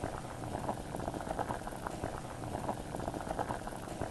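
Liquid boiling and bubbling steadily, a dense run of small irregular pops.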